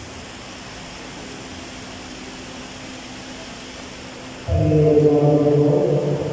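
Chanted singing: one loud sustained note starts suddenly about four and a half seconds in and fades near the end, after a stretch of steady low room noise.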